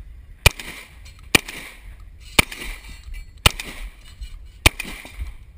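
A pump-action shotgun fired five times, roughly one shot a second, each shot followed by a brief echo.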